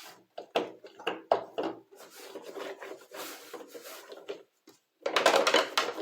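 Dry cloth wiping over an electronic keyboard's keys and casing: a few quick, sharp rubbing strokes, then a softer steady rub, and a louder rub near the end.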